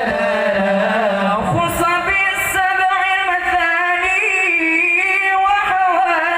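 Young men's voices singing an Arabic sholawat (devotional song in praise of the Prophet) through microphones, one long ornamented melodic line with the voice sliding between held notes. A lower held note sounds beneath the melody for about the first second and a half.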